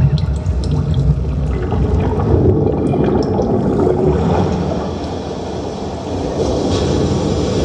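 Sound-design soundtrack of a 3D projection-mapping show played over large loudspeakers: a dense rushing wash with a heavy low rumble, dipping a little about five seconds in.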